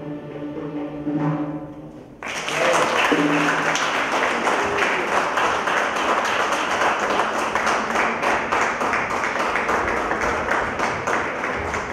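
A held musical chord ends about two seconds in, and audience applause breaks out at once and carries on steadily.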